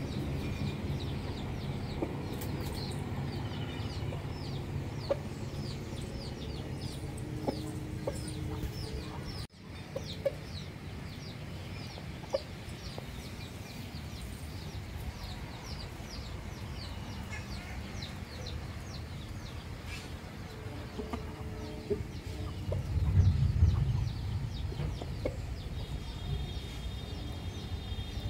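Chickens clucking in a yard as an Aseel rooster forages, with a fast run of short, high, falling chirps repeating a few times a second through much of the first half. A louder low rumble comes about three-quarters of the way through.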